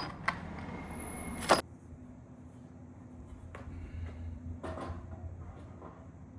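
Hardware being handled: a sharp knock about a second and a half in, then a few faint clicks over a low hum.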